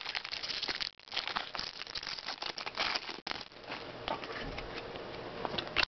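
Foil wrapper of a Bowman Draft baseball card pack being torn open and crumpled by hand, a run of crinkling and crackling with small clicks.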